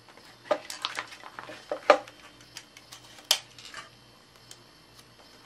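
Paper and clear tape being pressed and folded by hand: a run of crinkling and sharp paper rustles in the first two seconds, one more sharp crackle a little after three seconds, then quieter.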